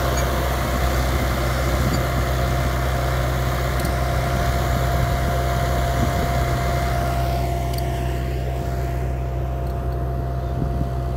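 UTB 650 tractor's diesel engine running steadily under load, pulling an SPC 6 pneumatic corn planter, with a steady whine from the planter's vacuum fan. The higher hiss thins out about eight seconds in.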